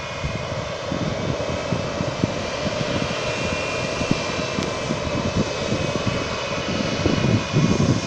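Jet airliner engines running steadily: an even rushing noise with a thin high whine over it.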